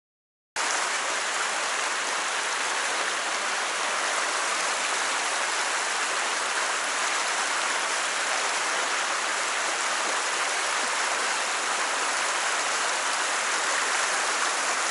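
Water of a small mountain stream rushing over rocks in a shallow riffle: a steady, even hiss that starts abruptly about half a second in.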